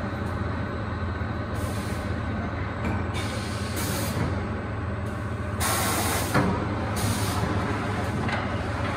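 Automatic carpet rolling machine running with a steady low hum, broken by several short hisses of compressed air from its pneumatic cylinders. The longest and loudest hiss comes about six seconds in, ending in a single clunk.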